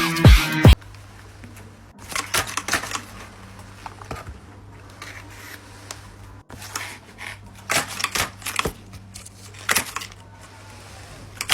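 Paper being handled and folded, crinkling and rustling unevenly over a steady low hum. A beat of music plays briefly at the start.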